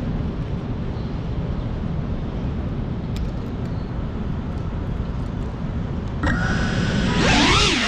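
A steady, low-heavy noise of wind and distant city traffic. About six seconds in, the motors of a GEPRC Cinelog 35 FPV drone spin up with a sudden high whine. Near the end the whine rises and wavers in pitch as the throttle comes up for takeoff.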